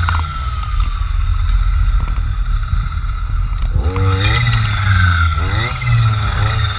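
Two-stroke engine of a Jonsered FC 2256 W clearing saw with a circular saw blade: the throttle is let off right at the start and the engine drops to a low, steady run for about four seconds, then it is revved up again in several quick surges.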